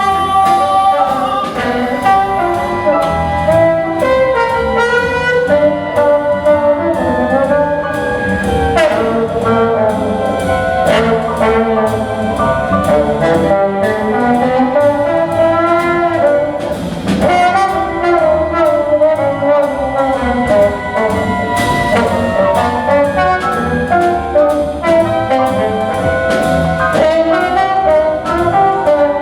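Jazz band playing an instrumental passage, with brass and saxophones carrying the melody over a rhythm section.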